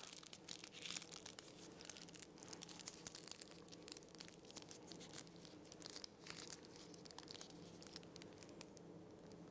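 Faint crinkling and rustling of a paper piping bag being folded and handled, in irregular bursts that thin out toward the end, over a low steady hum.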